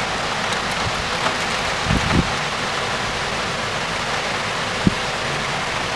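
Steady rain falling in a thunderstorm downpour, heard as an even hiss, with a few brief low thumps about two seconds in and again near the end.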